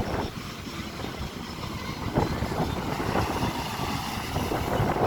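Ocean surf breaking and splashing over rocks, a steady wash of water noise with wind rumbling on the microphone; it swells a little about two seconds in.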